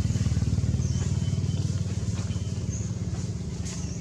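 An engine running with a steady, evenly pulsing low rumble that slowly fades, with a few short high chirps over it.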